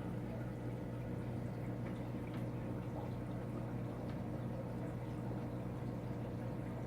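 Aquarium equipment running: a steady low electric hum, with water bubbling and trickling in the tank and a few faint ticks.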